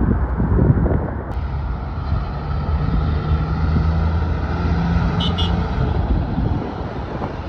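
Diesel engine of a bonneted prime mover hauling a stainless tanker trailer, running with a steady low note as the truck pulls through an intersection and passes close by. A brief high squeak comes about five seconds in.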